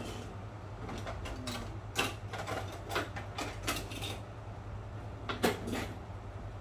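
Paring knife cutting peeled apples on a plastic cutting board: scattered, irregular taps and clicks of the blade, with a sharper pair of knocks about five seconds in, over a steady low hum.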